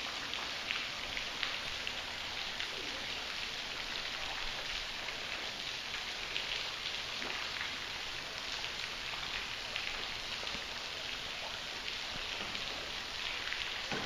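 Steady light patter of water drops falling onto the creek's surface, a fine hiss scattered with many small ticks.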